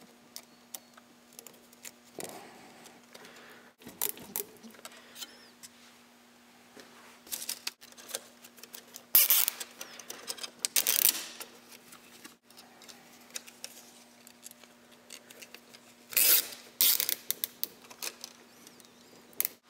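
Nylon zip ties being pulled tight through their ratcheting heads around a 3D-printed plastic leg, in several short zipping rasps with small plastic clicks and handling noises between them. A faint steady low hum lies underneath.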